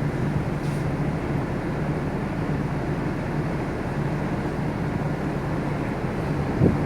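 Steady low drone of a ship underway, with wind blowing across the microphone; no horn sounds.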